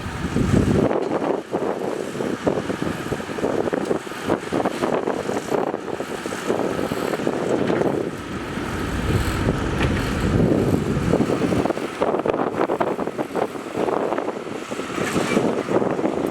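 Heavy earthmoving machinery at work: a diesel engine's rumble that swells and eases, with some wind noise on the microphone.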